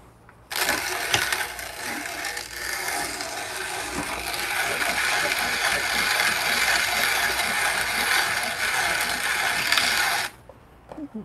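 ROK Espresso hand grinder's burrs crushing coffee beans as its long arm is cranked round by hand: a continuous, gritty grinding that starts about half a second in and stops suddenly about a second before the end.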